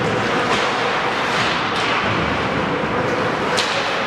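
Ice hockey play on a rink: three sharp cracks of stick and puck over steady arena noise.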